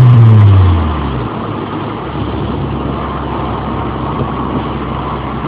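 Ford Escort GT's 1.8-litre DOHC four-cylinder, breathing through a cone air filter and an aftermarket muffler, falls from high revs over the first second or so and then idles steadily.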